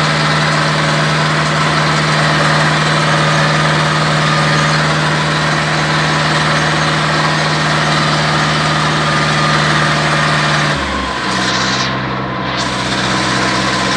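Zetor tractor's diesel engine running steadily at low speed, heard from inside the cab. Its note changes pitch about eleven seconds in.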